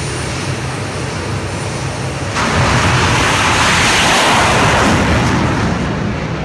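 Jet dragster's jet engine running with a steady low rumble, then about two and a half seconds in a much louder roar sets in suddenly as it goes to full thrust down the track, easing off near the end.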